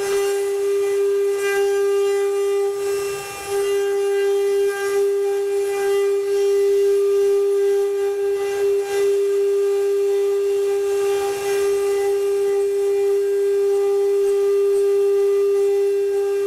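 CNC wood-carving router's spindle running with a steady high whine, with a hiss of cutting noise above it.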